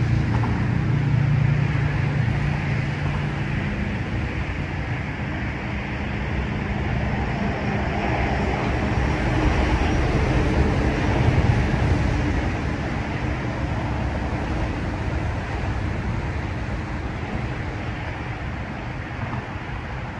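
Steady road traffic noise from vehicles crossing the bridge, swelling and easing as they pass, with a low engine hum standing out in the first couple of seconds.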